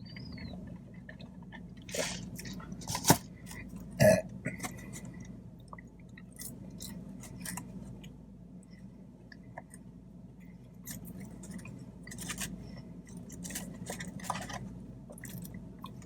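Close-miked chewing and wet mouth noises from someone eating, with scattered sharp clicks and smacks, the loudest about three seconds in. A short burp comes about four seconds in.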